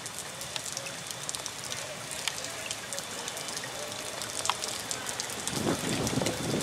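Steady rain pattering on wet surfaces, with single drops ticking close by. A low rumble builds about five and a half seconds in as a Class 156 diesel multiple unit draws into the platform.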